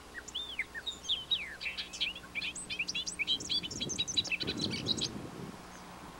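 A songbird singing one long, varied song of quick chirps and slurred rising and falling whistles, lasting about five seconds. A soft low rumble comes in under the last part of the song.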